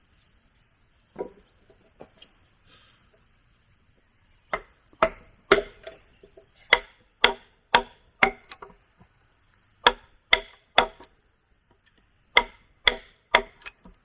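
A tool chopping into wood with steady blows, about two a second, in three runs separated by short pauses, after a single knock about a second in.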